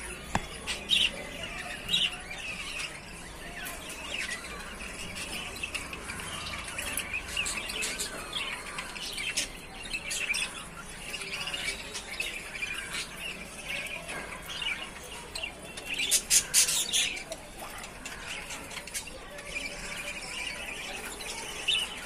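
Show budgerigars chattering: a continuous run of warbling chirps with scattered sharp squawks. The loudest moment is a short burst of sharp sounds about three-quarters of the way through.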